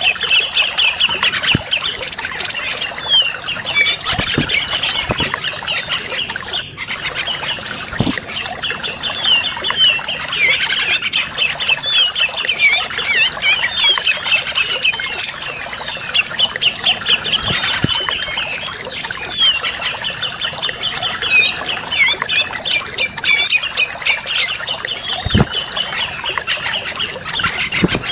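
Cucak jenggot (grey-cheeked bulbul) song from a bird-lure recording: long runs of fast, harsh chattering notes with short breaks, the rapid 'ngebeset' chatter used to draw in wild birds.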